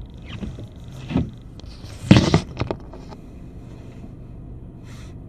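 Low steady hum of a car's idling engine heard from inside the cabin, with a few knocks and a loud rustle about two seconds in as a camera is handled and turned to face the windscreen.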